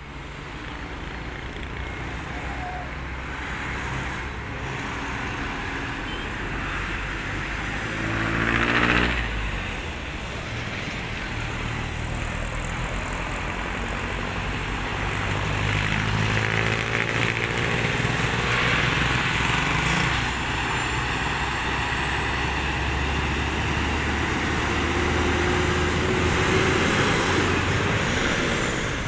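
Roadside traffic with a heavy truck's diesel engine running as it moves slowly past. A vehicle passes close about eight seconds in, its pitch dropping as it goes by, and from about sixteen seconds an engine note rises as a vehicle pulls away.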